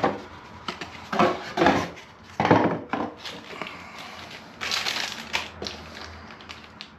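Rustling and crinkling of packaging as the lock box is rummaged through for a bag of parts, in several short bursts.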